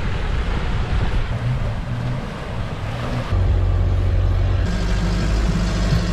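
4WD vehicle engine running with a steady low hum. The sound changes abruptly about halfway through and again near the end, louder in the later parts.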